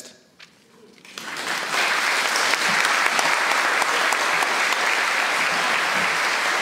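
Applause from a room full of people, building about a second in after a brief hush and then continuing steadily, greeting the end of a speech.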